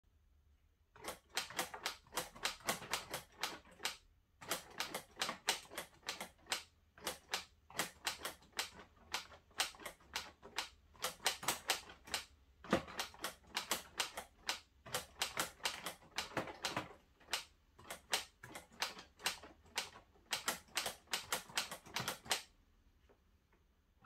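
Keys of a LEGO Ideas 21327 Typewriter being typed on: plastic keys and typebars clacking in quick runs of about five strokes a second, with short pauses between runs. The typing starts about a second in and stops shortly before the end.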